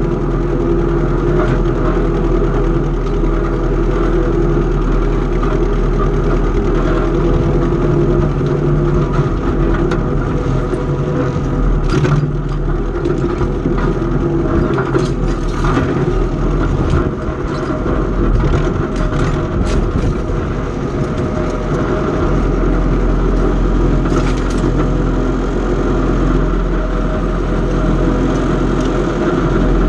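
Antique farm tractor engine running steadily at a constant speed, with a few short knocks or clanks in the middle.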